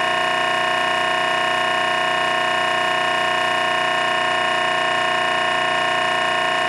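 A loud, unchanging horn-like tone made of several pitches at once, held without a break for about nine seconds.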